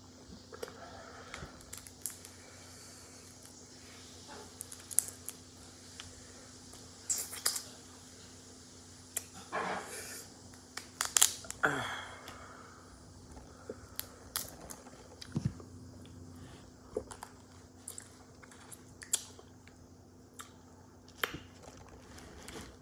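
Seafood being eaten by hand: crab and crawfish shells cracked and pulled apart, with sharp snaps and wet, messy chewing at irregular intervals. The loudest cracks come about 11 seconds in.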